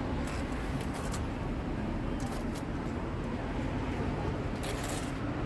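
Steady background hum with a few short rustles and crinkles of packaging and products being handled, about a second in, a couple of seconds in and near the end.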